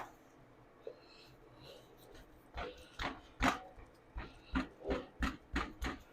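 Hands pressing and slapping pizza dough out on a work surface: a sharp click at the very start, then a run of about nine soft thumps that speeds up to about three a second near the end.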